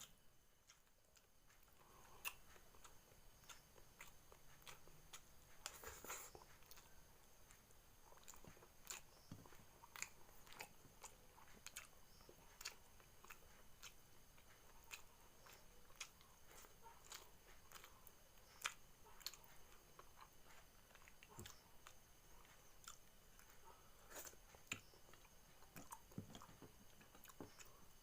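Close, quiet chewing and crunching of a person eating cooked catfish, with many small irregular bites and clicks. Faint steady high-pitched tones run underneath.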